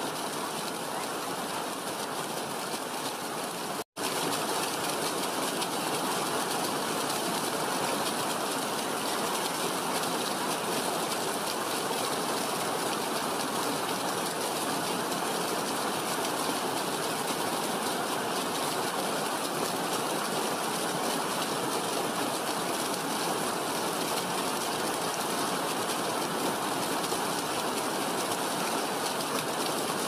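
Small waterfall rushing steadily over rocks, a dense even splashing noise. It cuts out for an instant about four seconds in, then comes back a little louder.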